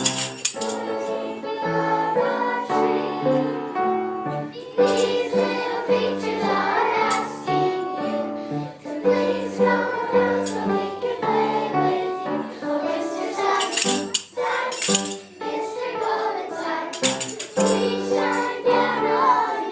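A song: a group of voices singing together over instrumental backing music.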